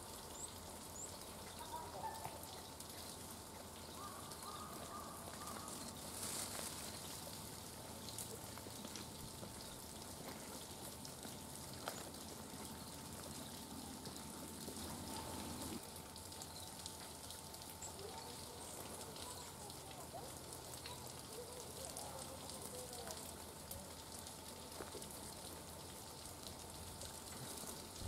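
Faint woodland ambience: a few soft, high chirps of small songbirds around the feeders, with scattered light ticks over a steady low hiss.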